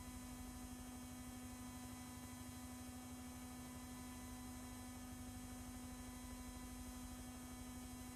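Faint, steady electrical hum: one low, unchanging tone with a few weaker higher tones over it, and no other sound.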